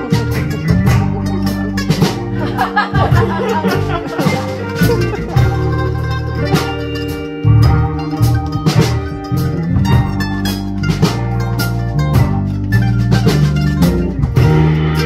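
A band playing live: an F-style mandolin picked over keyboards and a strong, moving low bass line, with percussive hits throughout.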